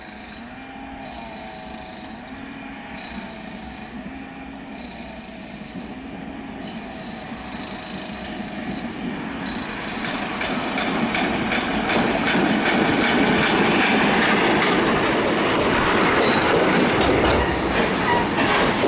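A diesel-hauled freight train approaches and passes close by. The 6Dg diesel locomotive grows steadily louder and goes past about halfway through. A line of Uacns tank wagons follows, rolling by with steady wheel and rail noise and a few short wheel squeals near the end.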